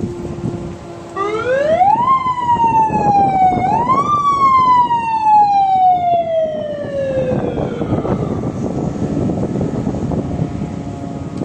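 Fire company siren sounding for an accident call. It winds up to a loud wail about a second in, sags a little, rises again, then slowly winds down over about four seconds.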